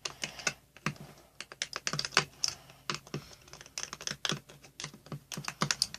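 A mixing utensil clicking and scraping against a small container in quick, irregular taps, stirring shampoo and sugar together.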